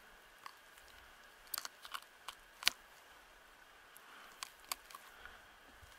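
Knife cutting through a trout's fins: a scattered series of short sharp clicks and crunches, the loudest about two and a half seconds in, with a few more near the end.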